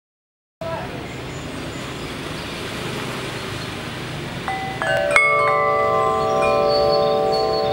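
Six-tube aluminium-alloy wind chime with thick 44 mm tubes, its striker hitting the tubes: one faint note near the start, then from about four and a half seconds in a run of strikes that leave several long, overlapping tones ringing on. A steady background hiss runs underneath.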